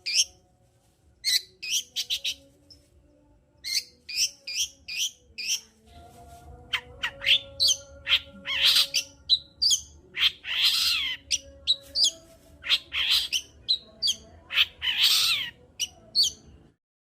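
Long-tailed shrike (cendet) singing: quick groups of short, sharp high chirps, with longer harsh rasping calls mixed in from about the middle on.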